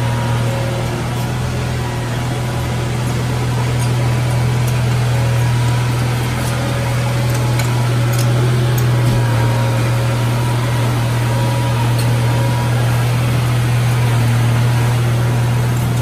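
Komatsu D31A bulldozer's diesel engine running steadily with a low drone, with scattered faint clicks over it.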